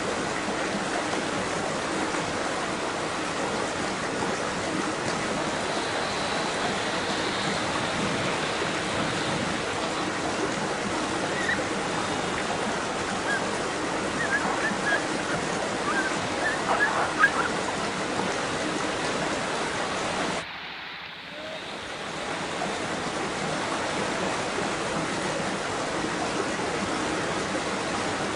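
Steady rushing of flowing water, with a few brief louder splashes about halfway through. Near the end the sound suddenly drops away for about a second, then returns.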